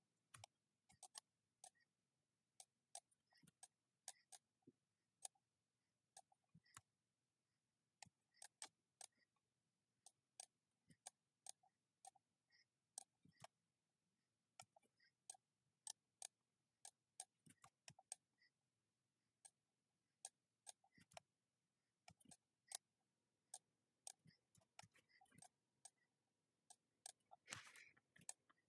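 Faint computer mouse clicks, single sharp clicks at irregular intervals of about one or two a second, with a short, denser cluster near the end.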